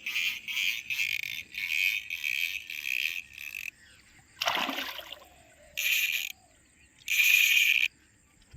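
A hooked mrigal carp splashing once at the water's surface as it fights the line, about four and a half seconds in. Before it, a run of high chirping calls repeats about three times a second. Two short hissing bursts come near the end.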